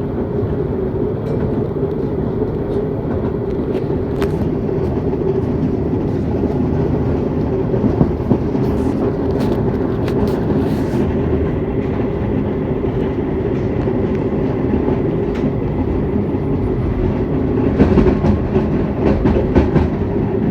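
Tram running, its traction motor giving a steady hum over wheel-on-rail rumble. A scattering of clicks and knocks comes through, more of them near the end.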